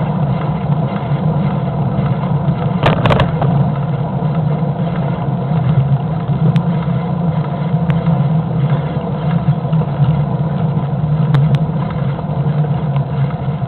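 Car driving slowly, heard from inside the cabin: a steady low engine and road drone, with a short rattle about three seconds in.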